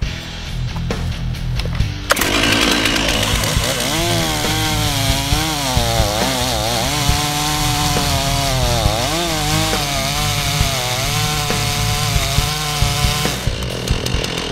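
STIHL two-stroke chainsaw cutting the angled top cut of a face notch into a tree trunk. It cuts in abruptly about two seconds in, and its engine pitch wavers, dipping and recovering as the chain bites into the wood. It stops about a second before the end.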